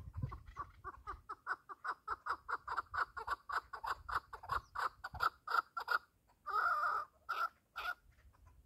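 A partridge calling: a fast run of short clucking notes, about five a second, growing louder. Near the end comes one longer, harsher call and then a few single notes.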